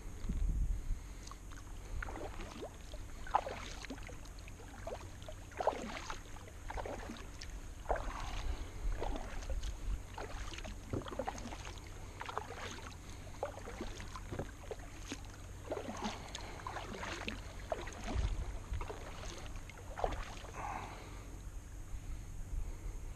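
Kayak paddle blades dipping and pulling through calm river water, splashing lightly on alternate sides at a steady rhythm of about one stroke a second.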